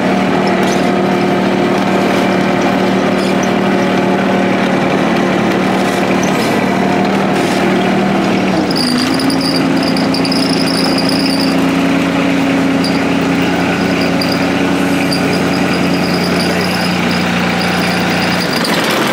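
An engine running steadily, its pitch stepping up about eight and a half seconds in; it stops abruptly near the end.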